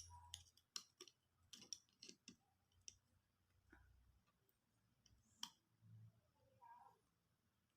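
Faint, irregular sharp clicks and taps of small repair tools and parts being handled on a phone's circuit board.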